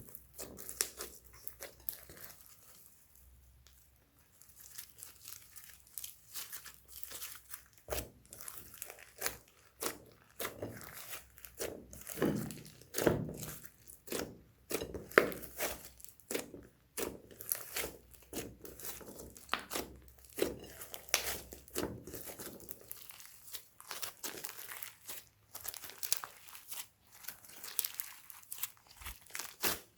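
Slime being squished, stretched and pressed by hand, making a dense, irregular run of sticky clicks, pops and crackles that grows busier after the first few seconds.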